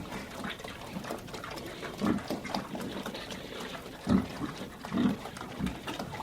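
Pigs grunting in a barn: a series of short, low grunts, the loudest about four and five seconds in, over steady barn background noise.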